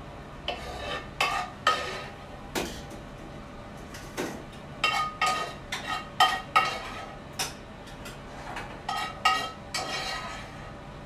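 Metal tongs and a serving spoon clinking and scraping against a frying pan and ceramic plates as pasta is served out. The clinks come in several quick runs, some with a brief metallic ring.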